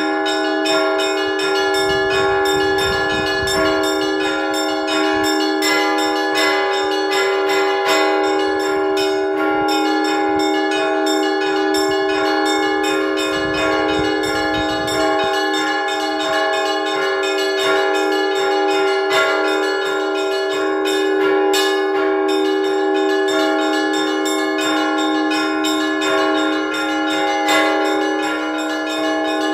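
Russian Orthodox church bells rung by hand by one bell ringer: a continuous peal of quick, even strikes on the smaller bells over the sustained ringing of the larger ones. It is the ringing that calls parishioners to prayer.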